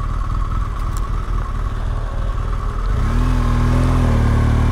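BMW GS boxer-twin motorcycle engine idling, then pulling away about three seconds in, the engine note growing louder and steadier.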